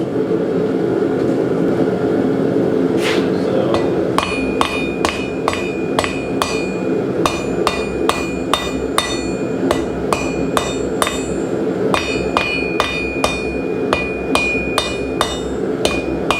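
Hand hammer striking hot steel bar stock on an anvil, forging a bevel around the edges of a door pull. A couple of strikes about three seconds in, then regular ringing blows about twice a second, over a steady low roar.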